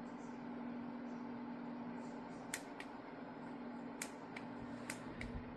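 Lasko T42951 tower fan running with a steady whirring hum. About halfway through, a run of about six sharp clicks comes over it.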